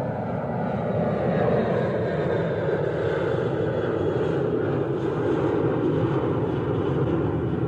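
Fixed-wing airplane passing overhead: steady, loud engine noise with a rush of air, its pitch slowly falling as it goes by.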